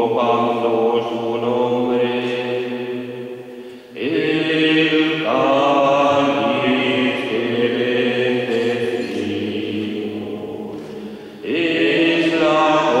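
Voices singing a slow liturgical chant at Mass, in long held notes, with new phrases beginning about four seconds in and again near the end.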